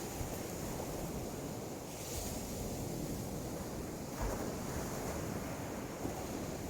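Sea waves washing onto the beach, with wind buffeting the microphone and a brief low bump about four seconds in.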